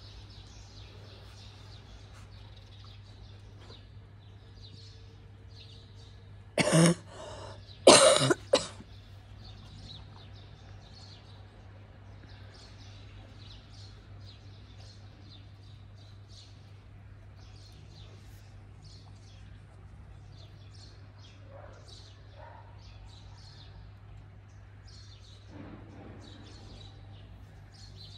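Two loud coughs about seven and eight seconds in, over small birds chirping throughout and a steady low hum.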